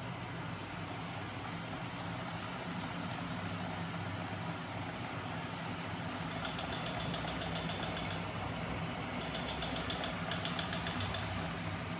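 Homebuilt magnet crankshaft rig driven by 12 V DC electric motors, running steadily with a low hum. From about halfway in, a fast, even ticking comes and goes.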